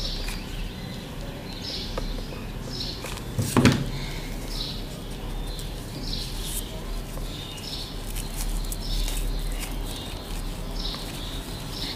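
Quiet handling noise of hands pressing satin wings onto a fabric craft angel with hot glue, with one sharp knock about three and a half seconds in. Short, faint, high chirps come and go over a steady low hum.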